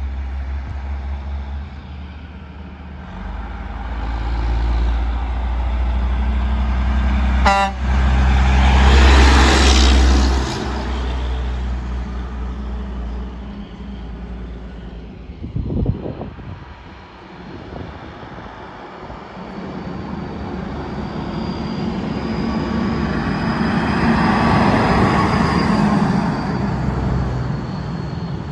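Diesel dump trucks driving past one after another, the engine and tyre noise of each swelling and fading. A very short horn toot sounds as the first truck goes by, and there is a brief knock about halfway through.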